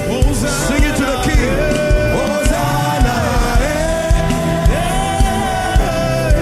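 Live gospel worship music: voices singing a held, gliding melody over a band with a steady kick-drum beat about twice a second.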